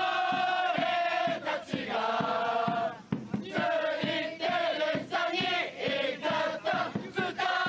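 Football supporters singing a chant together in unison, in long held phrases, over a steady beat.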